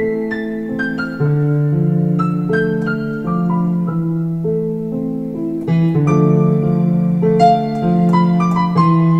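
Digital piano played by hand: a melody of single struck notes over sustained low notes and chords.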